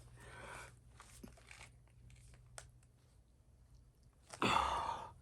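Tire-plug insertion tool being pushed and twisted against the puncture in a steel-belted truck tire, giving faint scratchy crunching and a few sharp clicks as the plug refuses to go in. A short, louder rushing noise comes near the end.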